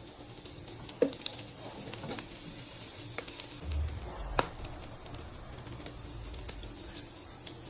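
Cooking in a pan: scattered clicks and taps of a utensil against the pan over a faint sizzle, with the sharpest click about a second in and a dull low knock near the middle.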